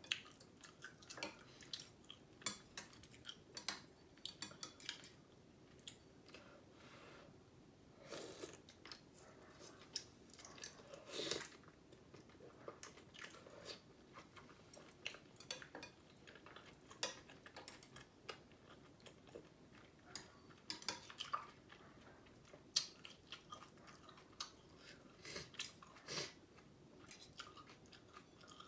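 Close-up eating sounds of rice-noodle soup: wet chewing and lip smacks, with longer noodle slurps about eight and eleven seconds in. Chopsticks and a metal spoon click now and then against the glass bowl.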